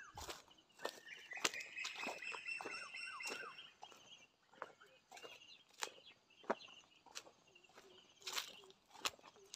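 A rooster crowing once, a long held call about a second in, over the crunch of footsteps on dry leaf litter.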